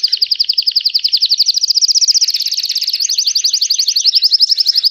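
Pied domestic canary singing a loud, rapid trill of repeated notes, about fifteen a second, that switches to a new trill type about two and three seconds in.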